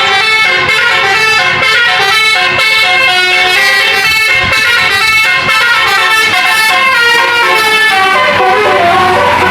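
Bus 'telolet' horn: a multi-tone musical air horn playing a quick tune, its notes stepping up and down several times a second.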